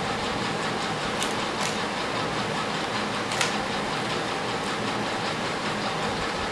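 A 3x3 Rubik's cube being turned by hand: a continuous clicking and rattling of its plastic layers, with a few sharper clicks, over a steady low hum.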